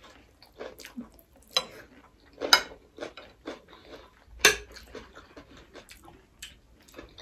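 Cutlery clinking and scraping on ceramic dinner plates while eating, in irregular sharp clicks, the loudest about two and a half and four and a half seconds in.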